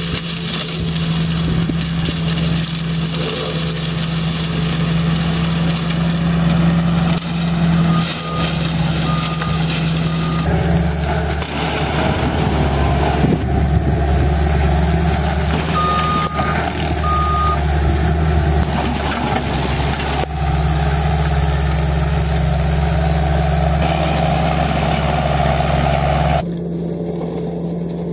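Heavy machine engine running steadily under load, with short warning beeps sounding three times and later twice more.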